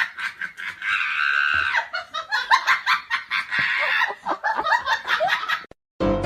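Rapid, high-pitched laughing in quick pulses that cuts off abruptly, followed by the start of music just before the end.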